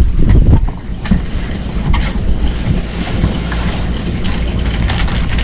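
Wind buffeting the microphone as a loud low rumble that rises and falls, with a few knocks and rustles from a box of supplies being opened and unpacked.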